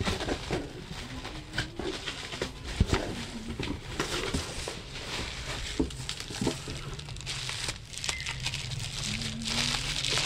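Plastic packaging crinkling and a cardboard parcel box being handled as it is unpacked by hand, full of sharp crackles. The crinkling gets denser and louder near the end.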